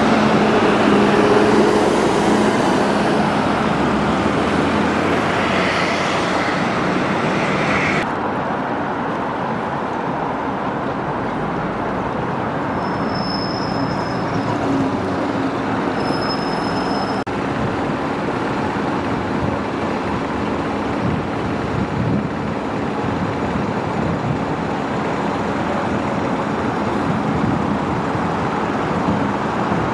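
Double-decker buses driving past in steady city traffic, one bus's engine hum strongest in the first few seconds. Two brief high squeaks come near the middle.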